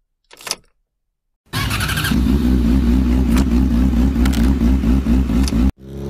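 Motorcycle ignition key turned with a short rattle. About a second later the engine comes in, running with its revs wavering up and down. It cuts off suddenly near the end, replaced by an engine accelerating with steadily rising pitch.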